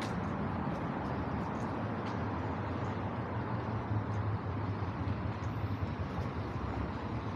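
City street traffic noise: car engines and tyres going by in a steady wash with a constant low hum, and a few faint light ticks.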